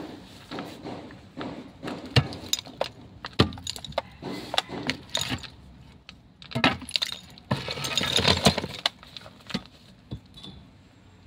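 Hammer blows on the concrete and ceramic-tiled wall of a tomb niche, with irregular sharp strikes as concrete and tile crack and break away. About two-thirds of the way through comes a longer clatter of breaking pieces and falling rubble, and the strikes die down near the end.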